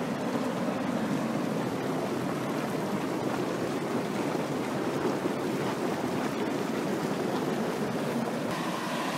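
Terminal Geyser's steam vent, with water boiling away beneath the rocks: a steady, even rushing noise.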